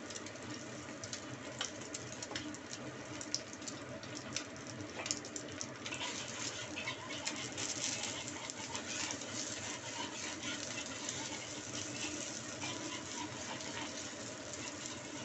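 An egg frying in oil in a hot wok: a steady sizzle with small crackles, growing louder about six seconds in. A metal spatula clicks and scrapes against the wok as it works the sticking egg loose.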